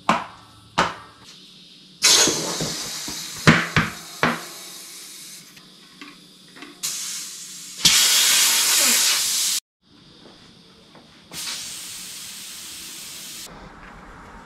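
Compressed air hissing into a tubeless mountain bike tyre in several bursts of one to three seconds, some stopping abruptly, as the tyre is inflated to seat its bead. A few sharp snaps and knocks come during the first bursts.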